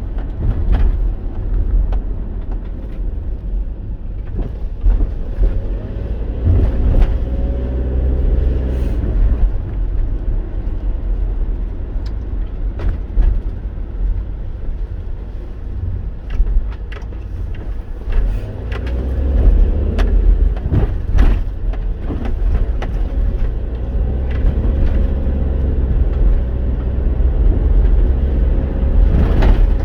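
Inside a moving vehicle's cabin: steady low road and engine rumble, with the engine note rising and falling as the vehicle speeds up and slows, and scattered small knocks and clicks.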